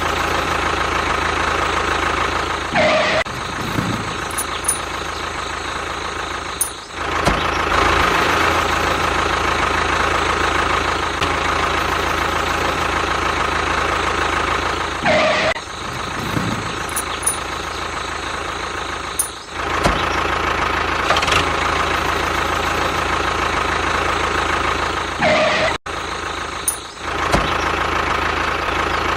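Small motor of a homemade mini bulldozer running steadily with a high whine. Three times a short whine falls sharply in pitch, and the sound drops out abruptly a few times.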